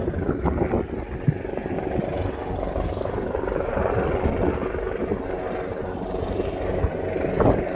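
Helicopter flying overhead, its rotor and engine giving a steady drone over a low rumble.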